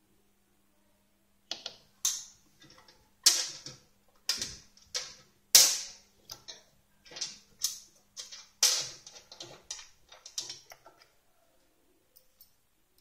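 Irregular sharp metallic clicks and clacks as the rubber-roller assembly of a PTFE tape wrapping machine is repositioned by hand, with a faint steady hum underneath that stops shortly before the clicking ends.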